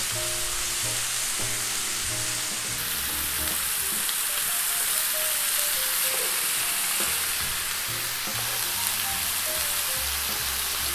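Thin slices of pork shoulder sizzling steadily in hot oil in a nonstick frying pan over medium to medium-high heat, searing until brown and crispy.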